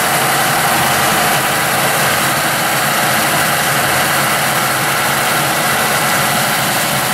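Homemade water-driven Clem engine running at speed on its big injector: the drum spinning fast with a steady, loud screaming rush of water spray and whirr.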